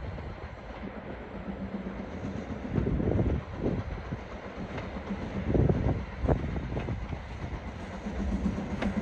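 A train running past, its wheels knocking heavily and irregularly over the rail joints above a steady low rumble.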